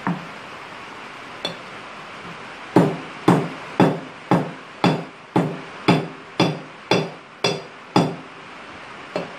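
Hammer tapping a sheet of head gasket material (Fel-Pro, about 3/64 inch thick) against the metal part beneath it to cut out a gasket by hand. Two single taps, then a run of eleven evenly spaced blows about two a second, each with a short metallic ring, and a lighter tap near the end.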